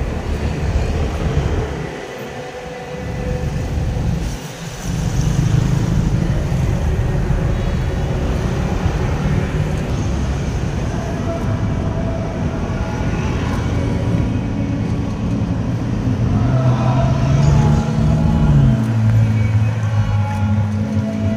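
Steady low rumble of motor traffic, dipping briefly twice early on and then holding level.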